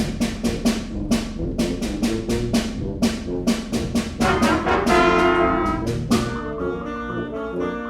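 Concert band playing a fast galop: brass with sharp percussion strikes on the beat, about four a second. About six seconds in the strikes stop and the band moves to softer, held chords.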